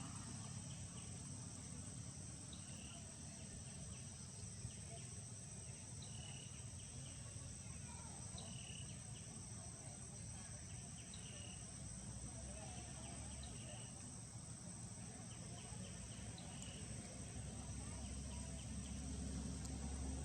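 A steady, high-pitched drone of an insect chorus, crickets or cicadas, with short high chirps every couple of seconds and a low rumble underneath.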